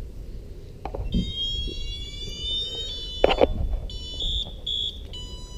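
Electronic fire alarm sounder, run on 24 volts, sounding: a high-pitched electronic tone starts about a second in, changes pattern partway through, then switches to short pulsed beeps before settling into a steady tone near the end. A single sharp knock about three seconds in.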